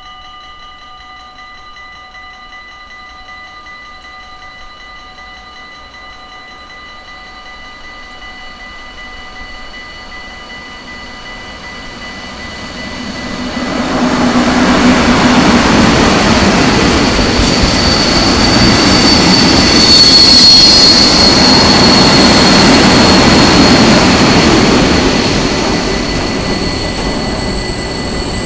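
A level-crossing warning bell rings steadily while a V100 diesel-hydraulic locomotive approaches, growing louder. The locomotive passes about halfway through, followed by the loud rolling rumble of a long train of tank wagons, with high-pitched wheel squeal around two-thirds of the way in and again near the end.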